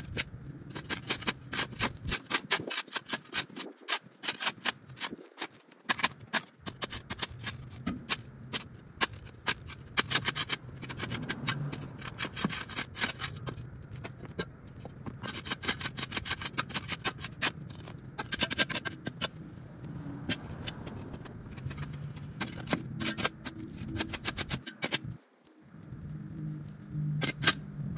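Many sharp, irregular scrapes and knocks of a tool clearing hard-packed soil off a concrete walkway, with a short break near the end.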